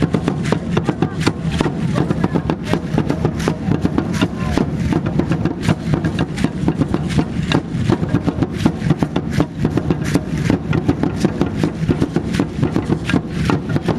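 Aztec dance drumming keeping a steady beat, with the rapid clatter of the dancers' seed-pod ankle rattles as they stamp and step.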